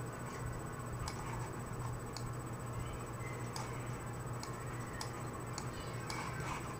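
Computer mouse clicking faintly about eight times at irregular intervals, over a steady low hum.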